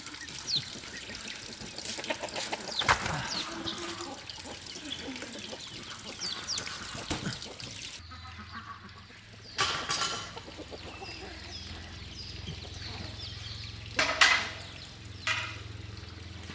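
Poultry calling. Small chirps and clicks sound through the first half, then come two loud harsh squawks in the second half and a shorter one just after the second.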